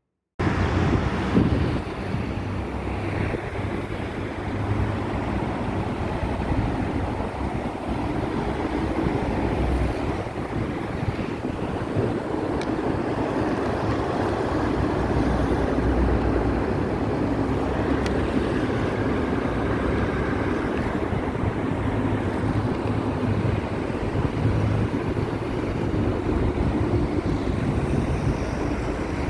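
Steady rumble of road traffic with wind on the microphone. It starts abruptly after a moment of silence.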